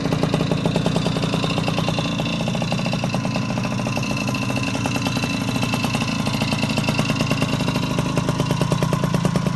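Puch Maxi S moped's 49 cc two-stroke single-cylinder engine idling, with an even, fast putter of firing pulses at a steady speed.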